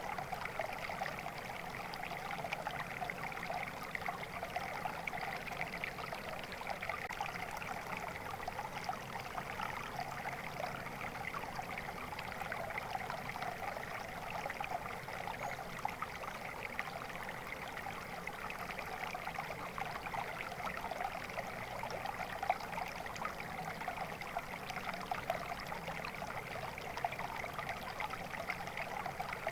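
Steady babble and trickle of a flowing stream over stones, with no change throughout.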